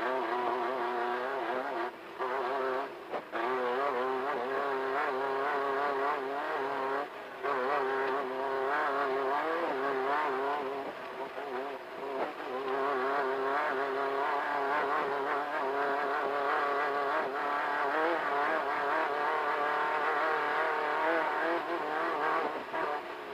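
Class 1500 off-road desert race car's engine running hard at speed, its pitch wavering up and down as the throttle comes on and off, with short dips in level about 2, 3 and 7 seconds in and again near the middle. A rough, steady rush of tyre and terrain noise runs underneath.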